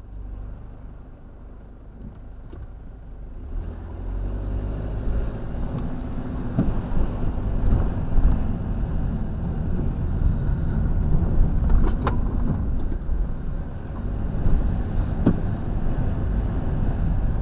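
A vehicle's engine and road noise heard from inside the cab: a low idle while stationary, then the rumble builds about three and a half seconds in as it pulls away and drives on. There are a few short sharp knocks along the way.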